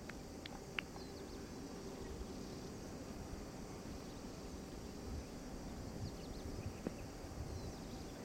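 Open-air ambience: a steady low rumble with faint, short high chirps scattered throughout, and one sharp click about a second in.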